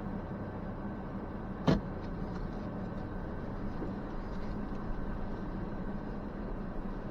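2023 Ford Ranger Tremor pickup truck running at a slow trail crawl, a steady low drone, with one sharp knock about a second and a half in.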